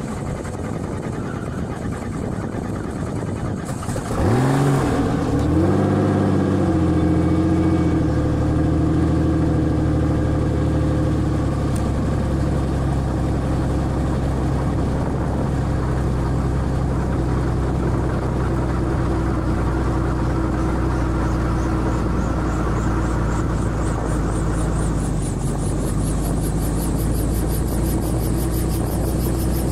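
Small two-bladed helicopter's engine starting on the ground. After a low hiss, it catches about four seconds in with a sudden rise in pitch, then settles to a steady idle as the main rotor begins slowly turning.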